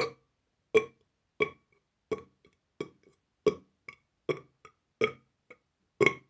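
A man burping in quick succession: about nine short burps roughly two thirds of a second apart, each starting abruptly and dying away fast, with smaller ones between them.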